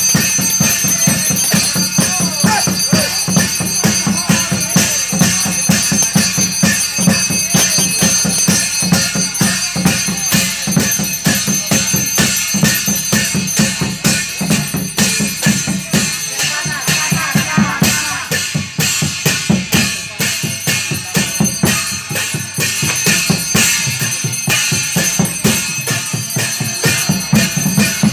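Fast, continuous ritual percussion: drums beaten in a quick, steady rhythm with jangling metallic percussion over it.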